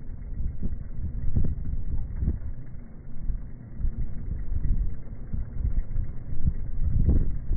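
Uneven low rumble of wind and road noise from a vehicle driving alongside a cyclist, with irregular thumps of wind buffeting.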